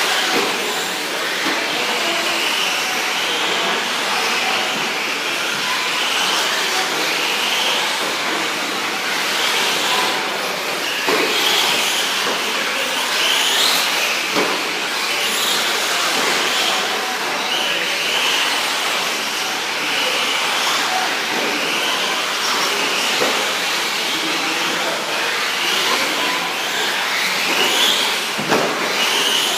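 Several 1/10-scale electric 4WD short course RC trucks racing, their motors whining in many overlapping rises and falls as they speed up and slow down, with a few sharp knocks along the way.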